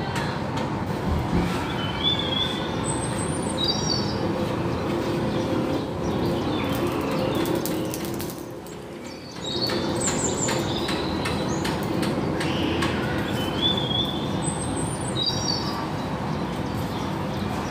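Small birds chirping in short, repeated high phrases, three bouts, over a loud steady rushing noise that dips briefly about halfway through, with scattered clicks.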